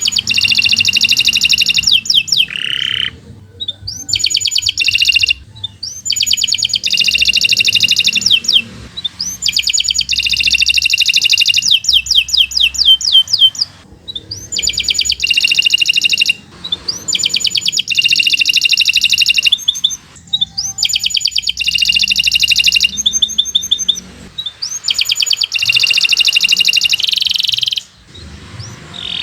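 Domestic canary singing long, fast trilled phrases of rapidly repeated high notes, each phrase lasting a couple of seconds with brief pauses between them.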